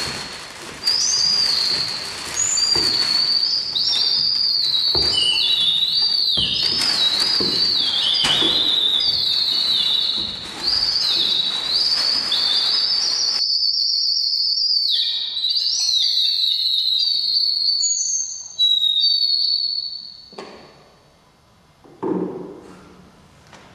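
A high whistling tone, its pitch sliding up and down in short swoops like a tune, which fades away after about twenty seconds. Two dull thumps come near the end.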